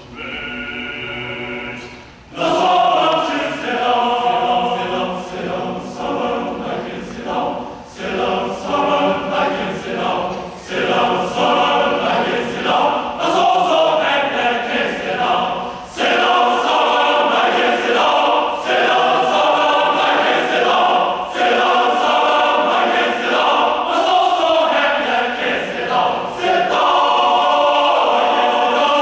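Large men's choir singing a gospel song or spiritual. It starts soft and steady, then the full choir comes in loudly about two seconds in and sings on in phrases.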